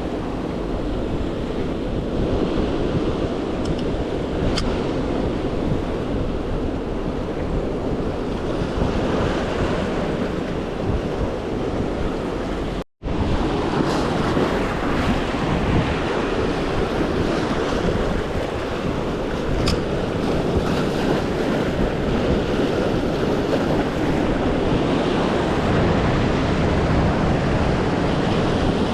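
Ocean surf washing in steadily, with wind buffeting the microphone. The sound cuts out for an instant about halfway through.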